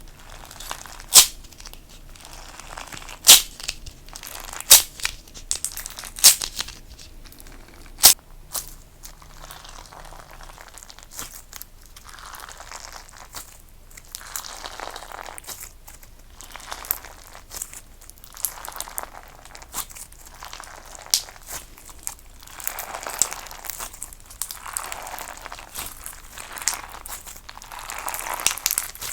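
Clear crunch slime being played with by hand: a few sharp crackling pops at first, then repeated crackly squishing pushes about every one and a half to two seconds.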